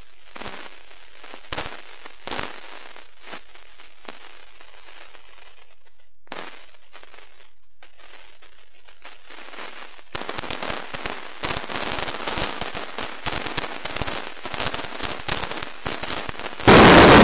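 Fireworks: a few separate sharp bangs in the first seconds, then a dense, rapid crackling barrage that builds from about ten seconds in. Near the end a sudden loud rushing noise covers everything.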